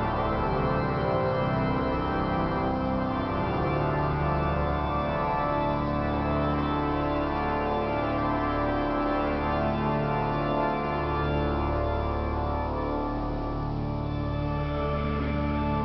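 Pipe organ playing slow, sustained chords that change every few seconds, heard inside a vast basilica.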